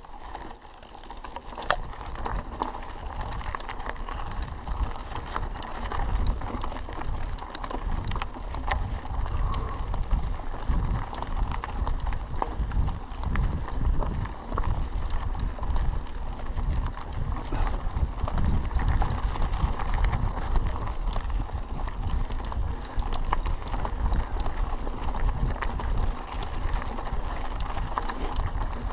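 Mountain bike riding on a dirt forest trail: tyres rolling over packed dirt and small stones, with a constant low rumble and scattered clicks and rattles from the bike.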